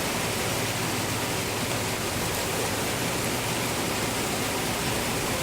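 Steady rain falling, an even hiss with no separate drops or strikes.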